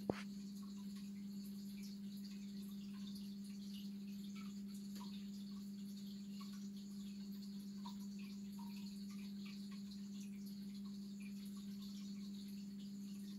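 Steady low electrical hum of an aquarium pump running, with many faint scattered ticks and chirps over it and one sharp click right at the start.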